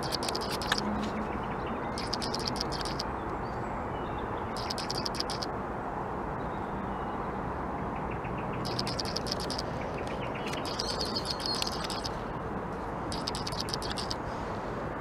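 A bird calling in short bursts of rapid high-pitched chirps, about six bursts a second or two apart, over a steady low rumble.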